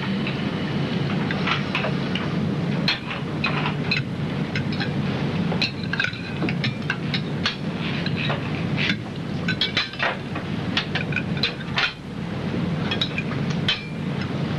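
Glasses and dishes clinking in many light, irregular clicks over a steady low din.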